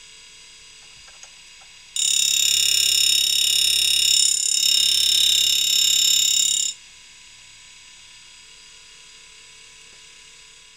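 Tool grinder motor running with a steady hum. About two seconds in, the wheel grinds the end of a 2-flute end mill with a loud, high-pitched whine for about five seconds, dipping briefly midway, then drops back to the motor hum.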